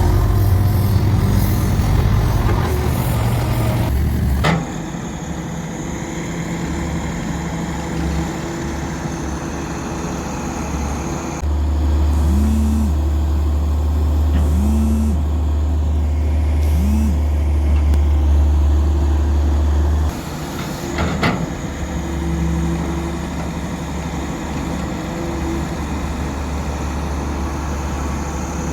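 Heavy diesel machinery at a road-building site: excavator and dump-truck engines running with a low drone. The drone changes abruptly several times, and there are three short rising-and-falling whines in the middle and a couple of sharp clacks.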